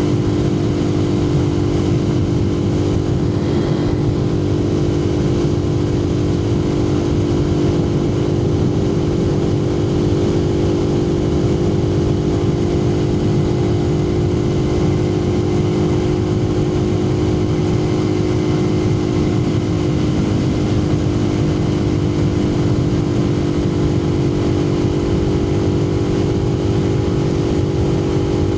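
Suzuki TU250X's single-cylinder engine running at a steady cruise, its pitch barely changing, heard through a microphone inside the rider's helmet over a steady low rumble of wind noise.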